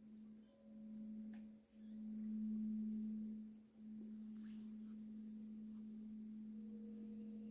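Quartz crystal singing bowl sounding one steady, pure low tone that swells and fades twice, then holds even. A fainter, higher tone rings above it near the end.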